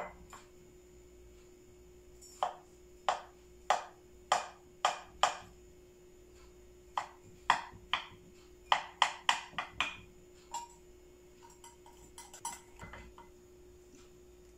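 Metal cake server cutting down through crisp baked kunafeh and striking the glass baking dish: a string of sharp clinks, about six at half-second spacing, then a quicker run of about eight, then a few faint ones near the end. A faint steady hum runs underneath.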